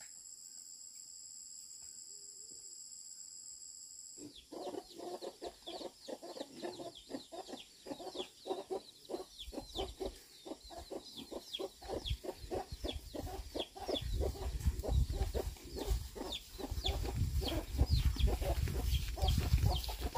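Insects shrilling in two steady high tones, cut off abruptly about four seconds in. Then chickens cluck in a fast, continuous run of short calls, with a low rumble growing louder in the second half.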